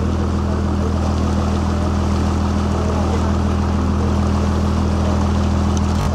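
A boat's engine running steadily with a low drone, over a steady rush of water along the hull. A brief click near the end.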